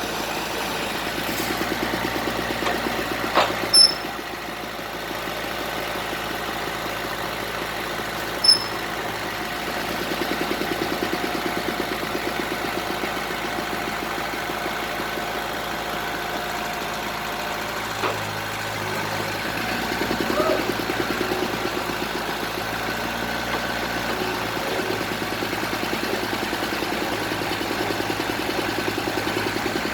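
Engine of a bored-pile drilling rig running steadily at idle, with a few brief sharp high-pitched blips, two of them close together about four seconds in and one more a few seconds later.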